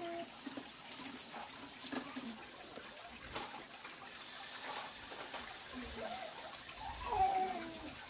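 Hot oil sizzling steadily in a wok as dough cakes deep-fry and batter is ladled in. A short wavering call sounds near the end.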